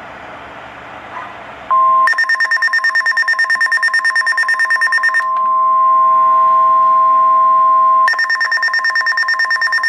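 NOAA Weather Radio's steady 1050 Hz warning alarm tone sounding on a weather radio, announcing an incoming Severe Thunderstorm Warning. Over it comes the radio's own rapid pulsing alert beep, about nine beeps a second, which stops for a few seconds near the middle and then starts again.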